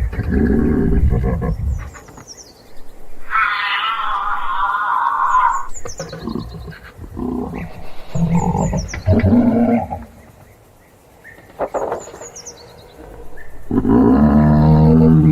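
Giraffe making low, pitched humming and snoring sounds in several bouts: one at the start, more around the middle and one near the end. A brief higher wavering sound comes about four seconds in.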